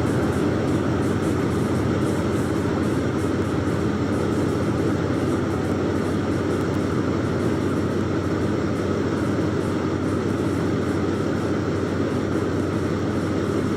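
Steady running of a vehicle's engine, a constant low hum under an even rumble of noise.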